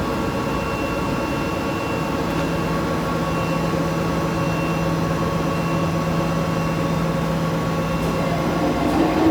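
Machine tool running steadily: a constant motor and hydraulic hum with level tones, and a faint high whine that comes and goes. A short rising tone near the end.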